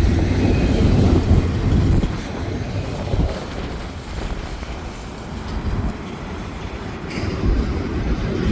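Intermodal freight cars rolling past on the rails with a steady rumble and wheel clatter. The sound is loud for the first two seconds, eases off, and swells again near the end.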